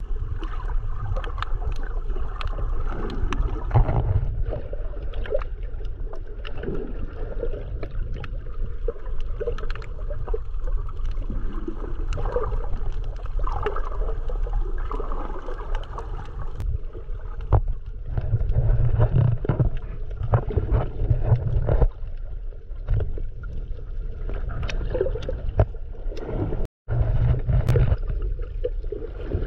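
Muffled underwater sound from a snorkeler's submerged camera: a steady low rumble of moving water with scattered clicks and crackles throughout. The sound cuts out for an instant near the end.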